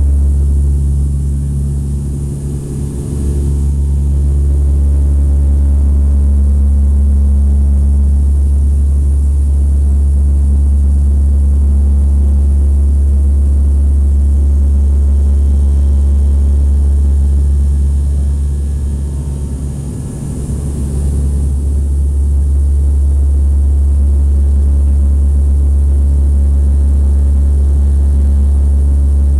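Steady, loud propeller and engine drone inside an airliner cabin in flight, a deep hum with a stack of even overtones that dips briefly twice.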